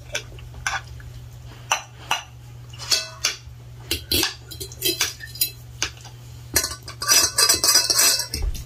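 Forks and spoons clinking and scraping against plates in scattered short clinks, with a louder, dense stretch of clattering and scraping about seven seconds in.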